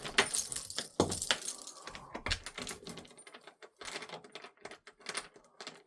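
Dogs moving about on a hard floor: light, irregular clicking and jingling from their claws and collar tags.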